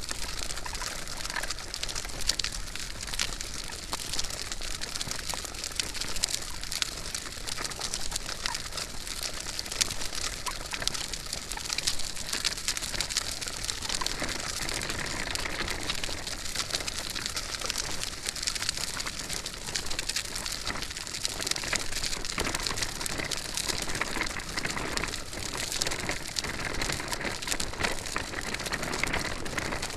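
Stroller wheels rolling as the stroller is pushed at walking pace: a steady crackle made of many small ticks.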